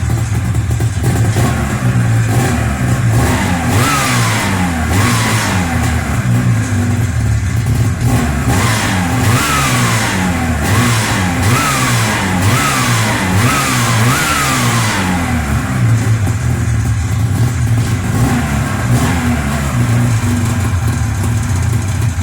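Taiga 500 snowmobile's two-stroke twin-cylinder engine running with the variator and covers off, on a first test start after an air leak was sealed. It idles, is blipped about seven times in quick succession in the middle, each rev rising sharply and falling back, then settles to idle again.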